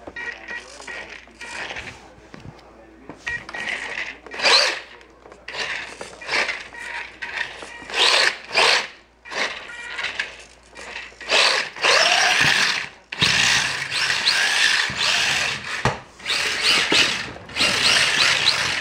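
Micro RC car's small electric motor whining in repeated bursts, its pitch rising and falling with the throttle, while the tyres slide on a smooth hard floor as it drifts and spins donuts.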